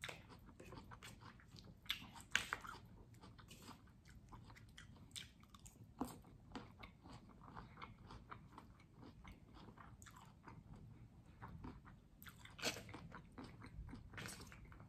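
A person chewing crunchy food: irregular soft crunches and mouth clicks, with sharper crunches about two seconds in and again near the end.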